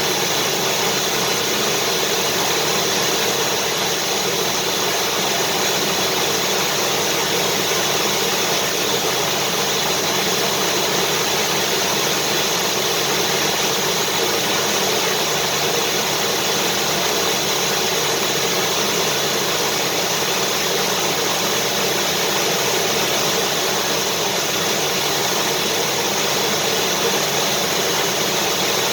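Vacuum cleaner running steadily, a constant even whooshing drone with a faint steady hum.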